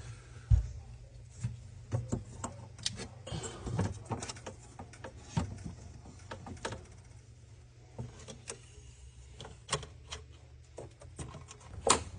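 Irregular light clicks and knocks over a low steady hum, with a sharper knock about half a second in and another near the end.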